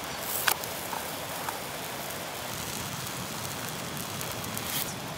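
Pancake batter sizzling in an oiled frying pan on a canister gas camp stove, over the stove's steady burner hiss. A few light clicks come near the start, and a brief sharper hiss comes near the end.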